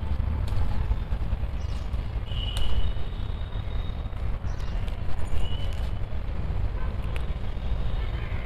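Green chillies being snapped off the plant by hand: scattered light clicks and snaps over a steady low rumble, with a few short high chirps.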